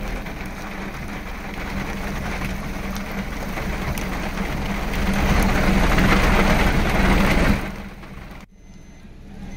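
Heavy rain pouring down, a dense steady hiss with a low hum under it; it grows louder and then cuts off sharply about seven and a half seconds in, leaving a quieter background with a short high beep near the end.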